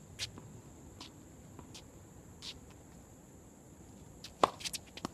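Tennis rally on an outdoor hard court: sharp pops of a racket hitting the ball and of the ball bouncing, faint at first and loudest in a quick cluster near the end. A steady high-pitched insect buzz runs underneath.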